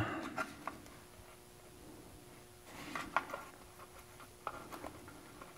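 Faint handling sounds of adhesive neoprene foam tape having its backing peeled and being pressed onto a 3D-printed plastic part: a few light clicks and a brief rustle about three seconds in.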